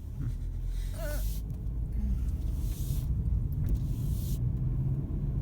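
Steady low rumble of a car on the move, heard from inside, with patches of hiss coming and going.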